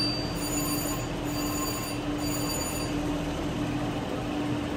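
Slot machine chimes ringing in three short bursts over the first three seconds. Under them are a steady electronic hum and the busy noise of a casino floor.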